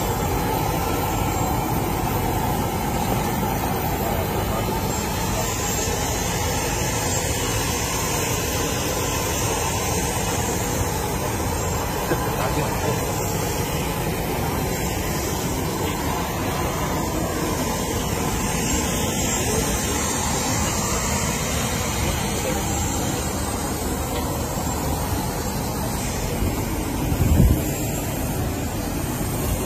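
Steady jet engine noise from aircraft running on the airport apron, with faint voices under it. A short, low thump near the end.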